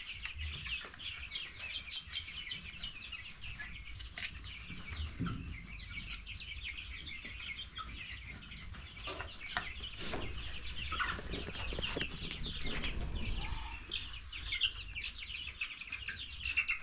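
A flock of young chickens peeping constantly: many short, high chirps overlapping without a break. A low rumble runs underneath.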